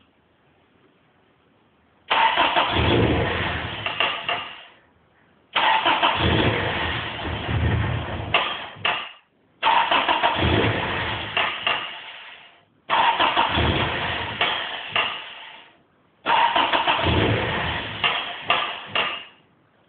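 Starter motor cranking a Toyota 3S-GE four-cylinder engine in five separate tries of about three seconds each. Each crank fades out without the engine catching: a no-start.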